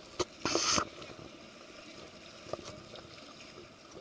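Kayak paddles splashing in the water as the cardboard boats are paddled, with one short, louder splash about half a second in, then a faint steady wash of water.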